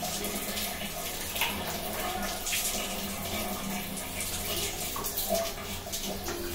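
Water running and splattering from a water filter housing into a plastic bucket as the housing is unscrewed with a plastic filter wrench, with a few sharp knocks.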